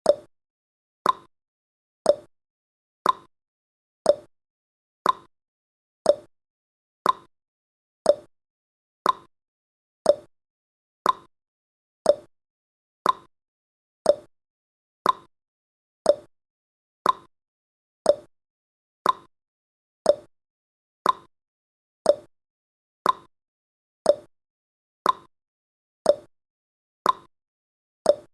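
Clock-tick sound effect of a countdown timer, one short tick per second, alternating between a lower and a higher pitch like a tick-tock.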